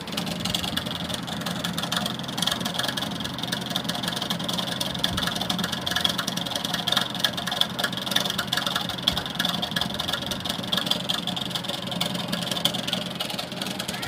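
Coil winding machine switching on and running steadily, winding enamelled copper wire onto a ceiling fan stator for its 360-turn starting coil, with a dense fine ticking over the motor's hum.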